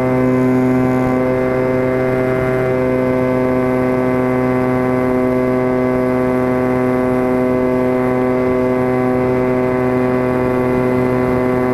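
E-flite Apprentice RC plane's brushless electric motor and propeller running steadily in flight, heard close up from a camera on board: a constant whine with many overtones that holds one pitch.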